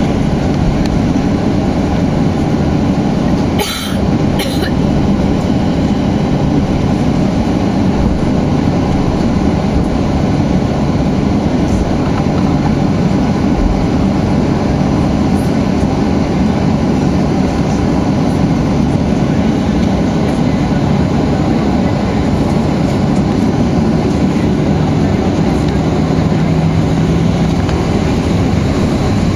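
Cabin noise of a Boeing 737-800 taxiing: a steady low rumble of its CFM56 engines at taxi power and the wheels rolling on the taxiway. Two brief knocks come about four seconds in.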